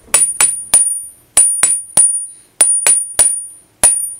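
Hammer blows ringing on an anvil, about ten sharp metallic strikes in quick groups of three, each with a high ring that dies away within a fraction of a second.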